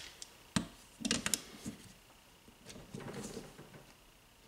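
A reassembled Honda Accord starter motor being handled on a cloth-covered workbench: a few light knocks as it is moved, then a short run of quick clicks from a ratchet wrench turning a nut on its solenoid end.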